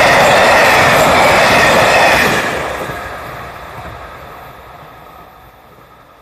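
Limited express electric train passing on a curve, its wheels rolling loudly on the rails. The noise cuts down sharply about two seconds in and fades away as the train moves off.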